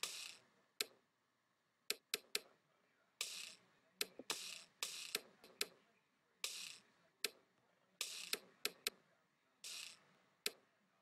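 Irregularly spaced mouse clicks mixed with short, hissy snare hits from a dubstep drum kit sample, each hit sounding as a snare note is clicked into place.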